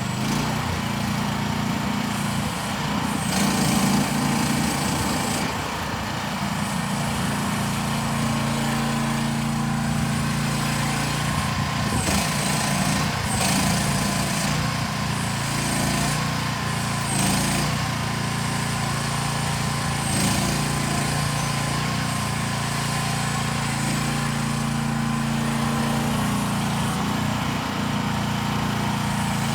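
The small engine of a new RT15R mini excavator running steadily, swelling louder for a moment about four seconds in, with short sharp noises every few seconds.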